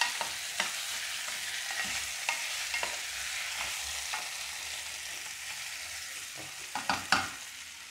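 Boiled potatoes sizzling in hot olive oil and fried garlic, a steady hiss, as a wooden spoon stirs them, knocking and scraping against the aluminium pot. A cluster of louder knocks comes near the end.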